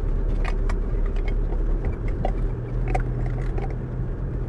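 Land Rover driving, heard from inside the cab: a steady low engine and road drone, with a few light clicks and rattles.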